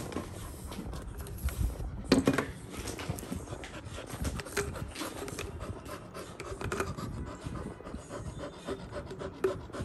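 Labrador puppy panting, with scattered clicks and rubbing noises from the toy ball being handled and its claws on the tile floor. A louder short sound comes about two seconds in.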